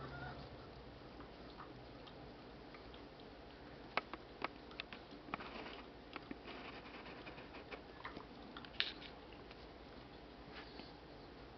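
Jack Russell terrier licking and nibbling at its paws: faint, irregular wet clicks and smacks, with a few sharper clicks scattered through.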